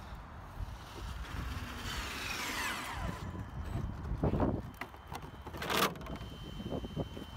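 Traxxas X-Maxx RC monster truck's 1600 kV brushless electric motor, run on 8S, whining at high speed, the pitch falling steadily over about a second, over a steady low rumble. Two short loud noises follow about a second and a half apart.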